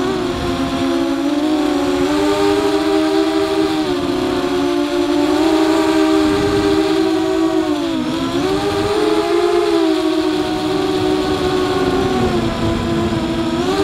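FPV quadcopter's electric motors and propellers whining, the several motors' tones moving up and down together with the throttle and dipping briefly about eight seconds in and again near the end, heard from the drone's own onboard camera over a low rumble of wind noise.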